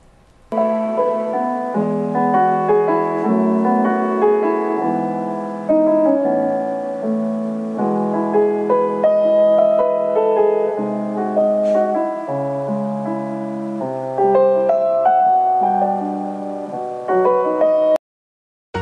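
Instrumental background music, sustained melody notes over chords, starting about half a second in and stopping abruptly near the end.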